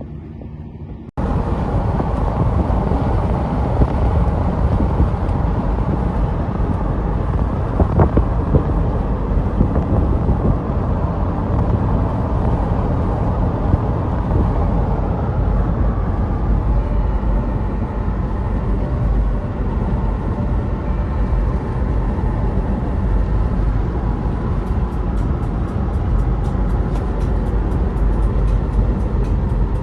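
Steady road and wind noise of a car driving at speed, heaviest in the low end. It starts abruptly about a second in.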